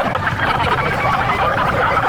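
Indistinct babble of many overlapping voices, with no single voice standing out, running steadily throughout.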